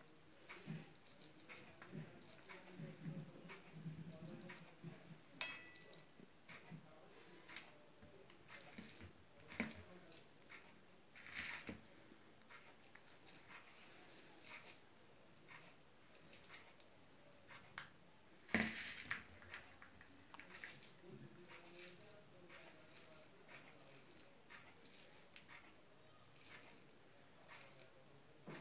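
Faint squishing and crackling of a sticky dry-fruit laddu mixture (nuts, dates and gond in ghee) being pressed and rolled between the hands, with scattered light clicks. One sharp ringing click about five seconds in and another sharp knock a little past halfway.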